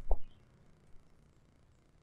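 A single brief, low thump right at the start, then quiet apart from a faint tick about a second in.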